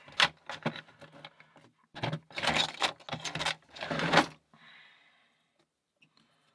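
Small hard objects handled on a desk: scattered clicks, then a couple of seconds of clattering and rattling, stopping near the end.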